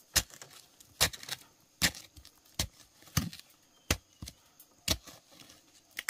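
A digging tool strikes into earth again and again while digging for wild yam tubers, about eight sharp chops a little under a second apart.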